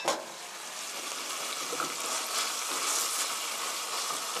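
Chicken pieces simmering in a thick tomato and red-pepper-paste sauce in a frying pan, sizzling and bubbling steadily after stock has been added. A sharp knock sounds right at the start.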